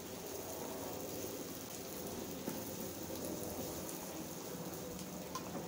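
Prawns, chopped tomato and red onion sizzling steadily in a frying pan, with a spatula stirring through them and making a few faint scrapes.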